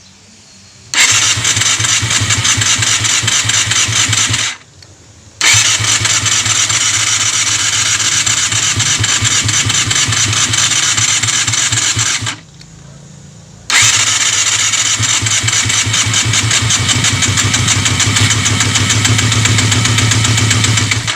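A Yamaha Zeal 250's electric starter cranks its inline-four engine in three long attempts, with short pauses between them, and the engine does not catch: a hard-starting engine that won't start.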